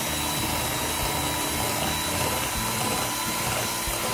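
Electric hand mixer running steadily with a high motor whine, its beaters churning a thick cream cheese mixture in a glass bowl.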